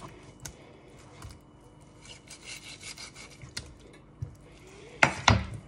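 Kitchen knife sawing and scraping through a raw chicken's skin and joints on a cutting board, with scattered small clicks and a louder sharp knock near the end.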